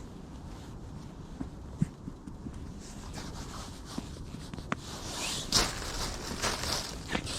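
Rustling and scuffing with scattered light clicks and taps over a steady low rumble, the rustling louder and hissier about five to seven seconds in.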